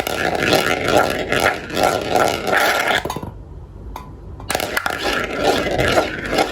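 Many glass marbles rolling and clattering down a marble run track, a dense rattle of clicks and scrapes. About three seconds in it drops to a lull of a few single clicks for just over a second, then the full clatter starts again.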